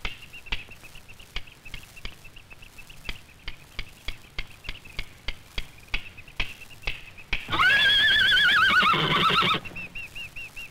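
A Camargue horse neighing once, a loud, long whinny with a quavering pitch that falls away at the end, over a steady run of sharp clicks, about three a second.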